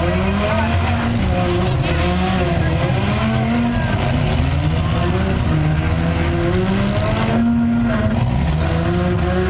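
Demolition derby car engines revving, the pitch climbing and falling again and again as the cars accelerate and back off.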